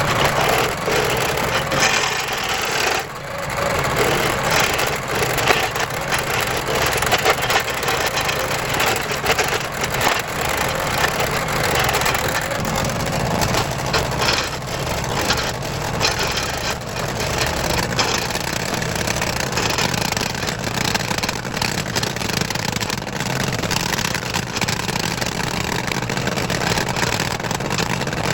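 Vermeer SC30TX stump grinder's cutter wheel grinding into a wooden stump: a continuous rough chipping noise full of small knocks, over the steady running of its engine.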